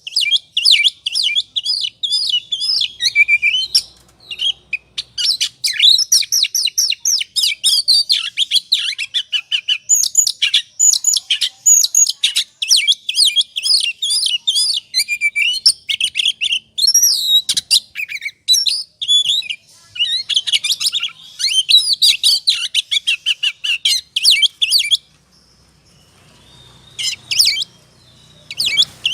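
Oriental magpie-robin (kacer) singing in the excited 'ngobra' style: a fast, unbroken run of varied chirps, trills and whistles. It breaks off for about two seconds near the end, then starts again.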